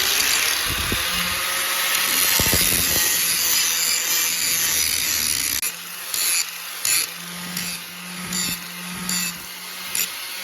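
A power tool worked against material: a steady rasping noise for the first half, then a string of short bursts over a steady motor hum from about six seconds in.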